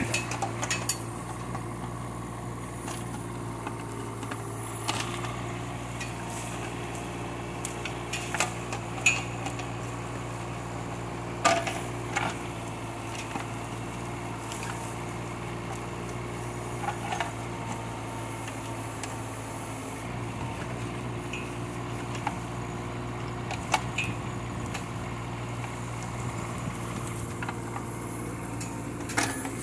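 Kubota K008 mini excavator's three-cylinder diesel engine running steadily under hydraulic work, with occasional sharp knocks from the bucket digging and prying at a bush's roots, the loudest about a third of the way in.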